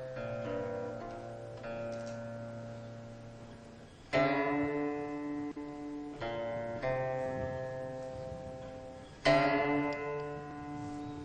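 Slow background music on a plucked string instrument: notes and chords are plucked, ring and slowly fade, with two strong plucked chords about four and nine seconds in.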